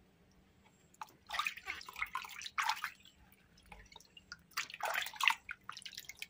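Water splashing and dripping in a basin as a baby monkey is washed by hand, in two spells of splashes starting about a second in and again near five seconds.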